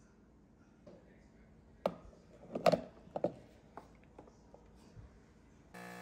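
A metal espresso portafilter being handled and locked into a De'Longhi espresso machine's group head: a few sharp clacks and knocks, the loudest about two and a half seconds in, with lighter clicks after. Background music comes in just before the end.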